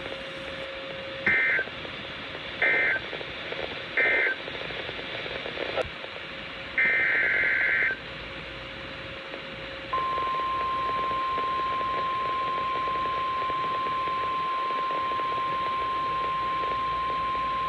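NOAA Weather Radio emergency alert signalling: three short, shrill two-pitch data bursts, the end-of-message code closing the previous warning, then a longer burst. About ten seconds in, the steady single-pitch 1050 Hz weather radio warning alarm tone starts and holds, announcing the next warning.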